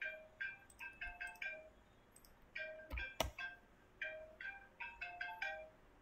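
Electronic key beeps: about fifteen short tones in quick, irregular runs, each at a slightly different pitch, with two sharp clicks about three seconds in.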